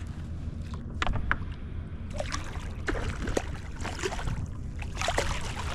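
Light water splashes and small knocks on a fishing kayak, over a steady low rumble of wind on the microphone.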